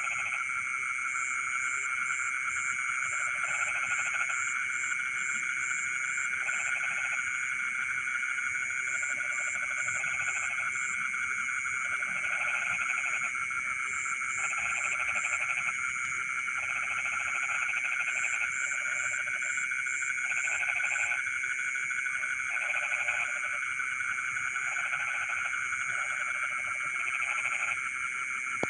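A chorus of many frogs calling together in a rice paddy. A dense, steady high trill runs underneath, with repeated lower croaking bouts of about a second each coming every second or two, and now and then a quick run of short, very high chirps.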